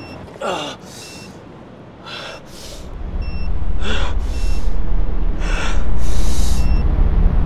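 A man breathing hard in a run of sharp gasps and forceful breaths, about eight in all. From about three seconds in a loud deep rumble sets in underneath, and faint short electronic beeps repeat over it.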